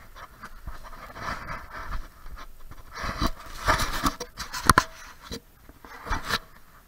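Rustling and scraping as someone clambers through dry branches, dead leaves and loose debris, with a few sharp knocks mixed in. The loudest knock comes about four and a half seconds in.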